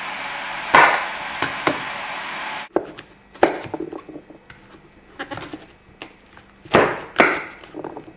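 Kitchen knife cutting through a courgette onto a wooden chopping board, a handful of separate cuts each ending in a knock on the board, the last two close together. A steady hiss runs under the first couple of seconds and stops suddenly.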